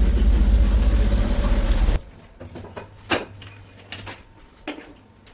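Pressure washer motor running with its spray hissing, cutting off abruptly about two seconds in. A few light clicks and knocks follow.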